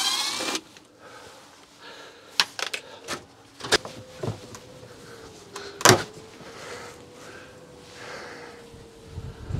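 A power tool runs with a falling pitch and stops about half a second in. Then come scattered knocks and clunks, the loudest about six seconds in, as a small roofed awning is pushed and worked loose by hand and a person moves on an aluminium stepladder.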